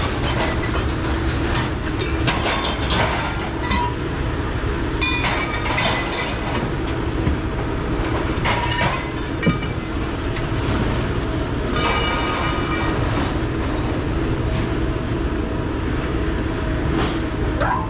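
Steady mechanical rumble with constant metallic rattling and clanking, and a few short high squeals.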